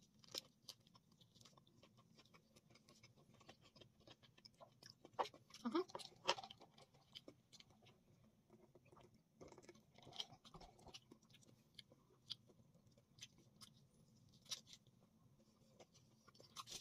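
Quiet chewing and mouth sounds of someone eating a seaweed-wrapped spicy tuna rice ball, with scattered small clicks and smacks, a little louder about five to six seconds in.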